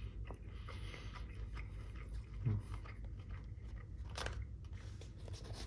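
A man chewing a mouthful of fried rice, with small clicks of a plastic spoon against a takeaway bowl, a sharper one about four seconds in. A short low hum from him about two and a half seconds in.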